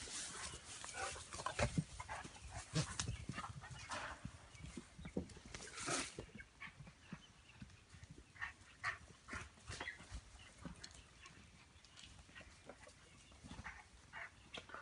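A St. Bernard and a miniature horse playing and scuffling: a run of short, sharp sounds and footfalls, busiest in the first six seconds and sparser after.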